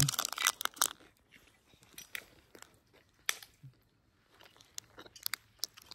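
A person biting and chewing a chocolate caramel fudge protein bar close to the microphone, with a rustle of the wrapper in the first second, then scattered small crunching clicks.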